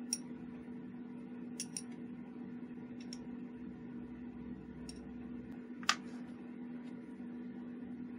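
Scattered small metallic clicks and taps as the steel parts of a homemade derringer's trigger and hammer mechanism are handled and worked apart with a small tool, about seven in all, the sharpest about six seconds in. A steady low hum lies underneath.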